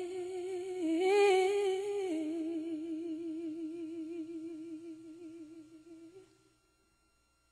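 A lone voice holding out the last sung note of a line with vibrato. It steps up in pitch about a second in, drops lower about two seconds in, and holds there with a wide, wavering vibrato, fading out about six seconds in.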